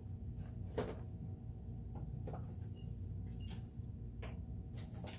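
A few faint, scattered clicks and light taps of small parts and tools being handled, the sharpest about a second in, over a steady low hum.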